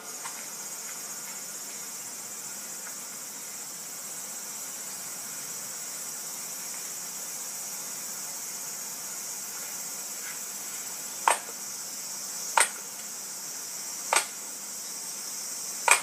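Steady insect chorus, a high shrill hiss, with four sharp chopping strikes in the second half, about a second and a half apart: a hatchet splitting firewood on a stump.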